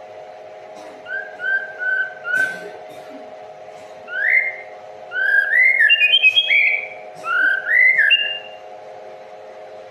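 A songbird singing clear whistled notes: four short repeated notes, then a run of rising and falling phrases, over a steady low hum.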